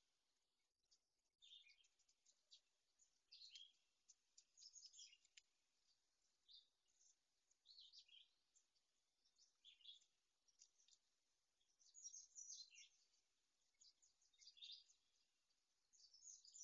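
Small songbirds singing faintly: short high chirps and downward-sliding notes, a few every couple of seconds.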